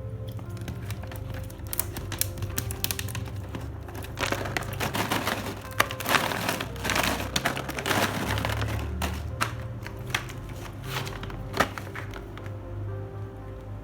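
Plastic packaging being crinkled and handled, with crackling and sharp clicks that are densest in the middle, over steady background music.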